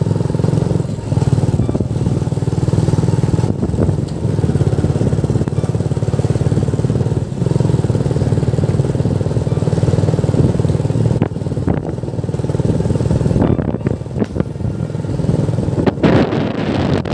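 Motorcycle engine running while riding, its steady pulsing note easing off briefly a few times, with wind buffeting the microphone near the end.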